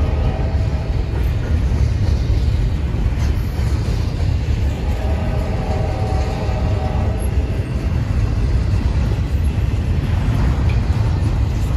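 Freight train passing: a steady, heavy rumble, with a droning tone that fades out and comes back about five seconds in.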